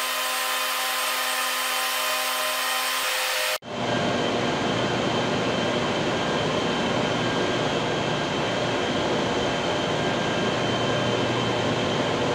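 Steady industrial machinery noise with a humming tone. About three and a half seconds in it cuts off abruptly, then comes back as a louder, rougher rushing noise with a low hum underneath.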